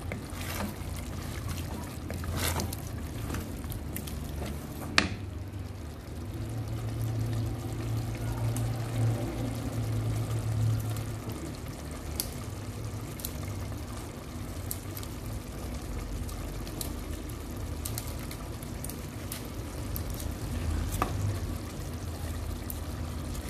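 A pot of matembele (sweet potato leaves) bubbling and simmering on a gas stove, with a wooden spoon stirring and knocking against the pot now and then. There is one sharp knock about five seconds in.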